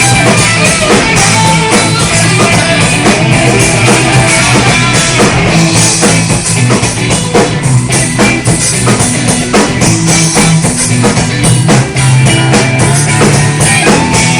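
A rock band playing loud and continuously: a drum kit with steady hits, together with guitar.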